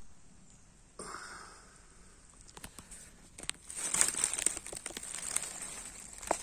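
Dry leaf litter rustling and crackling as a hand works among the leaves at the base of a porcino mushroom, growing louder from about three and a half seconds in.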